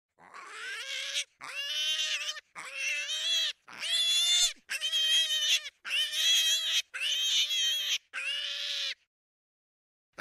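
An animal giving a string of eight high-pitched, drawn-out squealing calls, each about a second long with short pauses between.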